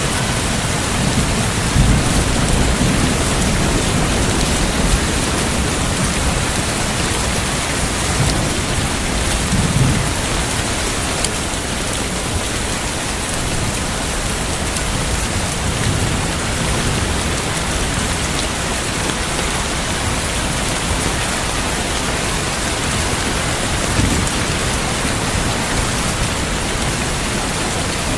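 Steady heavy rain, with low rolls of thunder: a longer rumble in the first few seconds and weaker ones later on.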